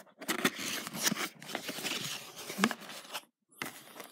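Cardboard box and the plastic bag around the TV box being handled while unpacking: a run of rustling with many small crackles, stopping for a moment about three seconds in.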